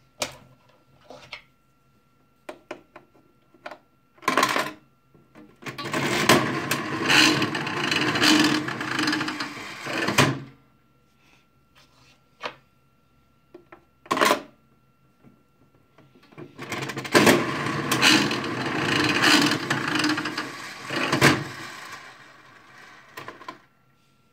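Toy slot-machine coin bank played twice: a sharp click and clatter as it is set going, then the reels spin with a loud mechanical rattle for about four seconds before stopping. The second play runs the same way, the spin lasting about seven seconds.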